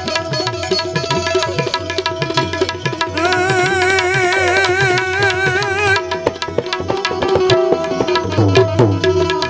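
Instrumental interlude of a Gujarati devotional bhajan: tabla playing a steady rhythm under sustained melody notes. In the middle, a wavering, vibrato melody note is held for about three seconds.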